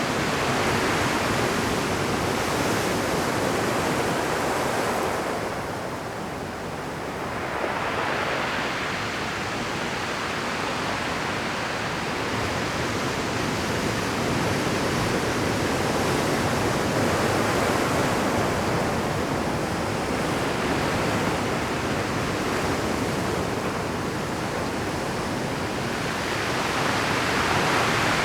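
Rough Pacific surf breaking on rocks: a continuous wash of water noise that eases briefly about six seconds in and then builds again with the next waves.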